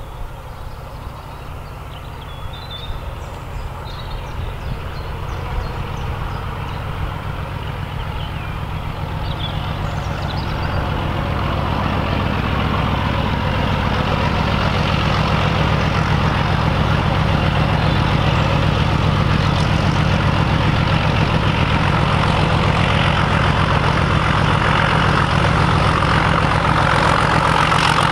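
Class 31 diesel-electric locomotive's English Electric V12 engine working under power, a low throbbing that grows steadily louder as the train approaches.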